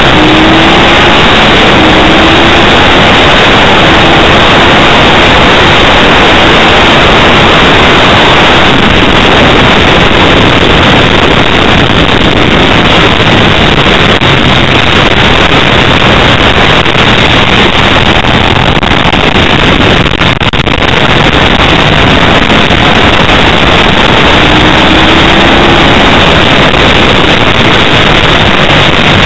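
Onboard sound of a Ducati 888 at racing speed: the V-twin engine under heavy wind noise on the microphone, very loud and distorted. The engine pitch rises at the start and again near the end as the bike accelerates.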